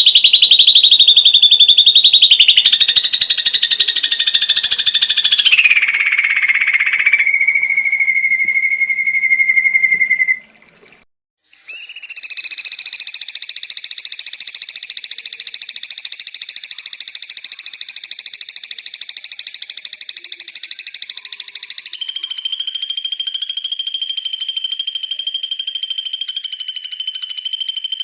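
Ashy drongo calls: long, high, rapidly trilled notes and held whistles that step down in pitch, cut by a brief break about ten seconds in, then a long buzzy trill that gives way to a steady high note.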